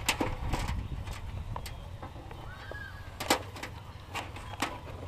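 Handling noise: a few light clicks and rustles as wires and the handheld camera are moved, over a steady low rumble.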